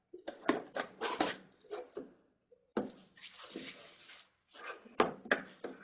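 Handling noise: a series of sharp clicks and knocks, with a rustle lasting about a second from about three seconds in, as a phone charger and its packaging are handled.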